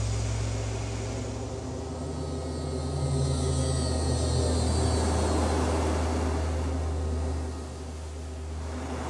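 Flying police car from a science-fiction film passing by: a deep steady hum that starts abruptly, under a rushing whoosh that swells to its loudest around the middle and drops off about seven and a half seconds in.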